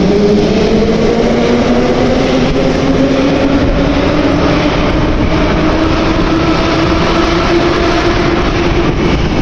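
Moscow metro train picking up speed: the whine of its traction motors rises in pitch over the first few seconds, then holds steady over the continuous rumble of the running train.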